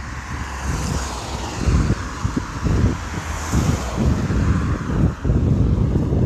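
Wind buffeting the phone's microphone in irregular gusts, with road traffic: a car passing with tyre noise that swells in the first few seconds and fades.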